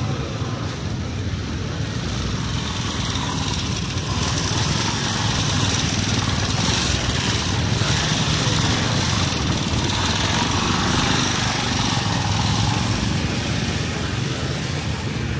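A small petrol engine running steadily, growing louder from about four seconds in and easing off near the end, over the general noise of a busy street.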